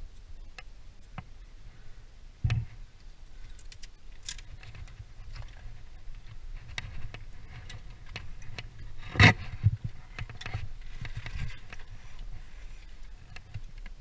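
Small clicks, taps and scrapes from hands working thin bird-deterrent wire and climbing gear against brickwork. There are two louder knocks, one about two and a half seconds in and a sharper, louder one about nine seconds in.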